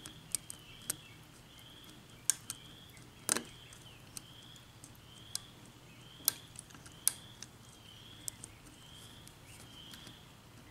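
Sharp, irregular metal clicks and taps of a hook pick and tension wrench working the pins of an Asec 6-pin lock cylinder during single-pin picking. A faint high chirp repeats steadily about every 0.7 s behind them.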